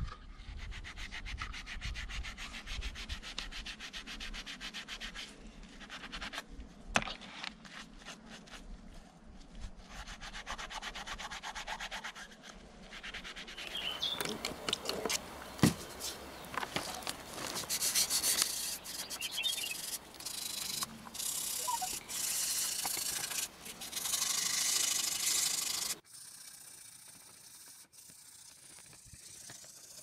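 Brass lighter case parts being wet-sanded by hand with P800 waterproof sandpaper and soapy water: continuous rubbing strokes, louder and harsher from about halfway through, then softer near the end.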